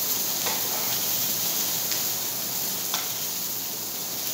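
Barbecue chicken sizzling on a hot steel plate over a gas burner, a steady hiss, with a few light clicks of metal tongs.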